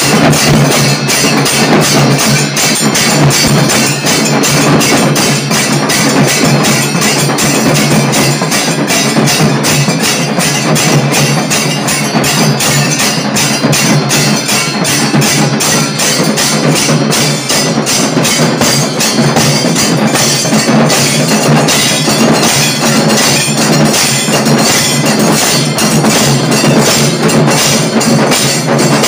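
A group of drummers beating drums slung on straps, playing a loud, fast, dense rhythm without a break.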